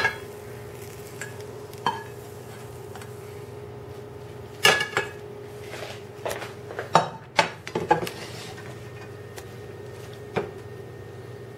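Kitchen utensils clinking and scraping against a frying pan and plate as a cooked omelette is lifted out and plated: scattered short knocks and clatters, bunched in the middle, over a steady low hum.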